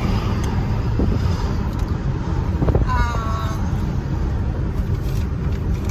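Steady low rumble of a moving car heard from inside the cabin, with a brief vocal sound about three seconds in.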